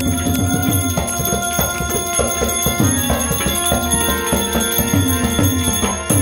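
Tabla and harmonium playing together: held harmonium notes under quick tabla strokes, with the low bass drum's strokes sliding down in pitch.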